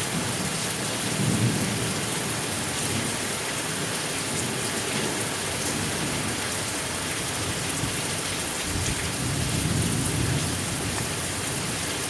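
Steady rain hissing, with low rolls of thunder rumbling about a second in and again near the end.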